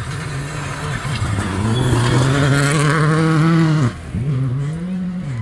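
Rally car engine at full throttle on a gravel stage, climbing in pitch and loudness as the car approaches and holding high. About four seconds in the revs drop sharply, then rise in one short burst of throttle and fall away as the car passes in a cloud of dust.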